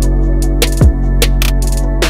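Background music: an electronic track with a steady deep bass, a kick drum thump a little before the one-second mark, and several sharp percussion hits.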